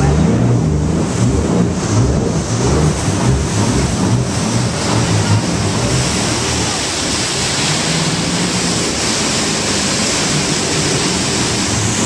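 Huka Falls, a large waterfall running at about half its full flow, pouring into the river close by as a heavy, steady rush of water. A jet boat's engine runs low underneath. The water noise fills in over the first couple of seconds as the boat moves in toward the falls.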